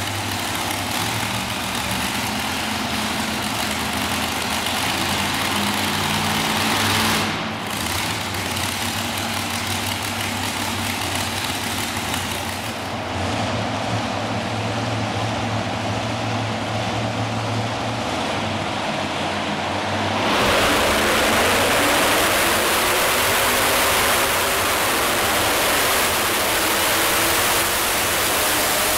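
Modified pulling tractor's supercharged engine idling steadily at the line, then, about two-thirds through, going suddenly to full throttle and staying there, much louder, as the tractor pulls the sled.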